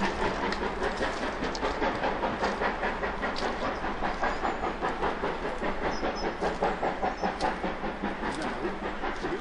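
GWR Manor-class 4-6-0 steam locomotive working hard, its exhaust beating in a fast, even rhythm of about four beats a second, with clicks of wheels over rail joints.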